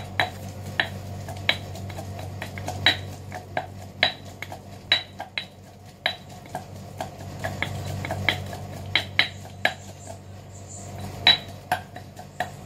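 Granite mortar and pestle pounding red chillies: sharp stone-on-stone knocks in an irregular rhythm, a little under two a second, some with a brief ringing click.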